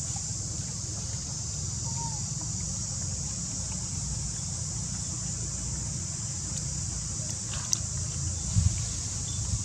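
Steady high-pitched drone of insects over a low rumble, with a few sharp clicks near the end.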